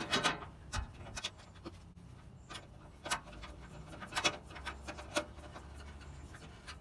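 Hand screwdriver driving a screw through a wire tank bracket into a metal grill frame rail: scattered light clicks and scrapes of metal on metal.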